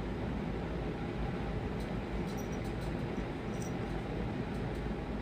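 Steady low background noise, like a room hum, with a few faint clicks in the middle.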